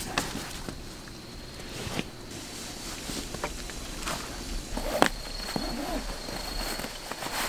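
Fabric rustling and soft handling noises as a blanket and a sleeping bag are spread and moved about in a tent, with a few sharp clicks, the sharpest about five seconds in. A faint steady high tone sounds through the second half.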